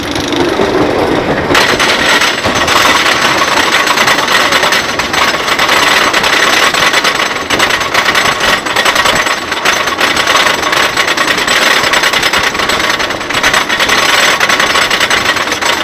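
Wooden roller coaster train being hauled up the chain lift hill: rapid, loud clacking of the lift chain and the anti-rollback ratchets, growing sharply louder about a second and a half in.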